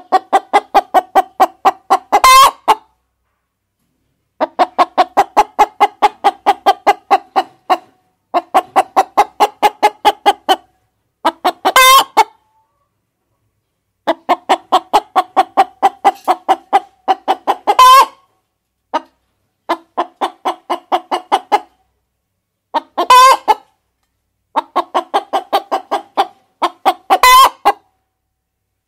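A hen cackling: runs of rapid, even clucks, about four a second, each run ending in a loud, high squawk, five times over, with short gaps of silence between the runs.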